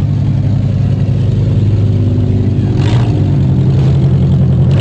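Demolition derby car's engine running steadily at low speed, with a brief rush of noise about three seconds in.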